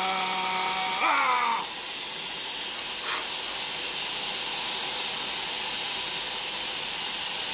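Compressed air hissing steadily from a blow gun being used to cool the head and neck. A drawn-out pitched vocal sound rises, holds and then slides down during the first second and a half.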